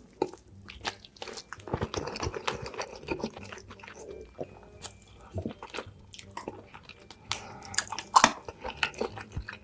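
A person eating close to the microphone: irregular biting and chewing with crunchy, wet mouth clicks, the loudest bite about 8 seconds in.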